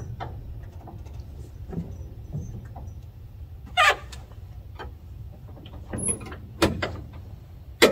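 About four clicks and clunks from the mechanical flap handle and airframe of a Tapanee Levitation 4 float plane as the flaps are moved by hand, the loudest near the end, over a low steady rumble.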